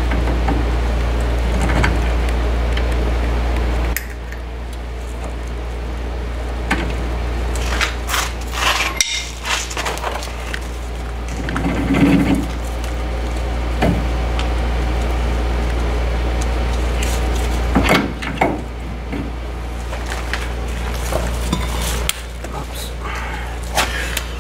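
Scattered clinks and knocks of metal brake parts being handled: a brake rotor and wheel hub being worked by hand, over a steady low hum.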